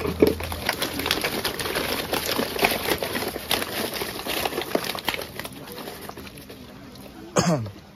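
Rapid, irregular clicking and rustling from a net bag of freshly caught pomfret being pressed down on a platform scale, the fish shifting inside. The clatter thins out toward the end.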